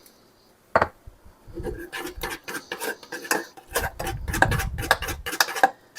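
A utensil clinking and scraping in a pot of Alfredo sauce: after a short quiet moment and a single click, a busy run of quick clicks and rubs, with a low rumble partway through.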